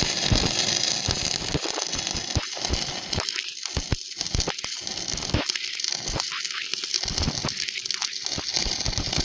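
Electric arc welding: a steady crackling sizzle of the arc, broken by many irregular sharp pops.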